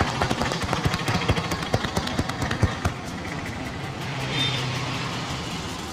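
A quick, irregular run of sharp clicks and pats from hands working a head massage, stopping about three seconds in, over a steady background of street traffic.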